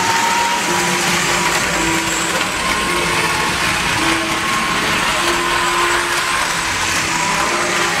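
Electric model train running on the layout: a steady motor whirr that holds at an even level.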